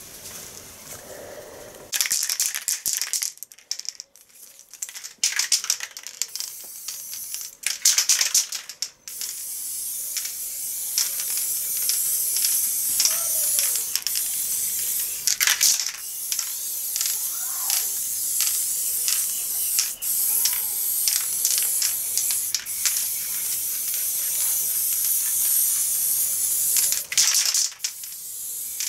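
Aerosol spray-paint can hissing as paint is sprayed through a paper stencil. It comes in short bursts for the first several seconds, then in long, almost unbroken sprays with brief pauses.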